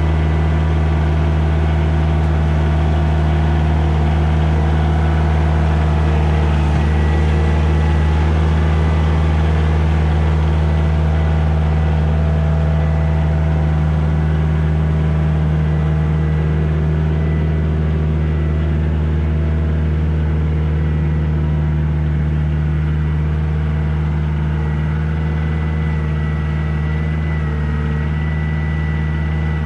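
Kioti tractor's diesel engine running steadily while its front-end loader scoops, lifts and carries a bucket of sawmill dust, with a thin steady whine over the engine note. It grows slightly quieter near the end.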